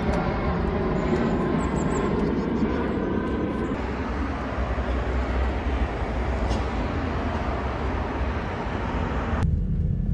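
Steady vehicle rumble with indistinct voices in the first few seconds. Near the end the higher hiss cuts off abruptly, leaving only the low rumble.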